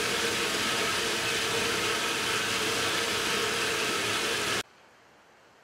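Steady mechanical running noise, an even hiss with a low hum like an engine or machine idling, that cuts off suddenly about four and a half seconds in.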